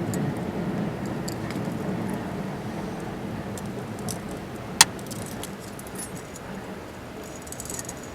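Wood campfire burning, with scattered crackles and one sharp pop about five seconds in. Near the end comes a brief run of light metallic clinks.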